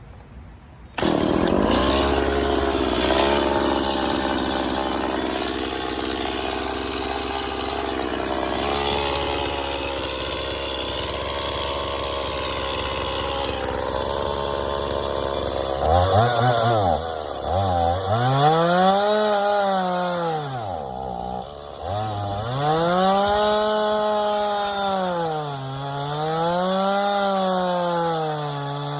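Gas two-stroke chainsaw opening to full throttle about a second in and cutting into a pine log at a steady pitch. Later the engine speed rises and falls over and over.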